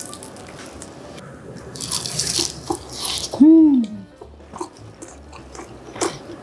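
Close-miked eating of spicy stew: wet slurping and chewing, then a short hummed "mmm" of enjoyment rising and falling in pitch, the loudest sound, about halfway through. A few light clicks of spoon or chopsticks come near the end.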